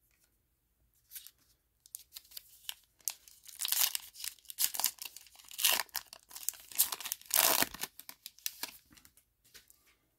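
A 2023 Topps Heritage baseball card pack wrapper being torn open and crinkled by hand: a run of crackling rips, loudest from about three and a half to eight seconds in.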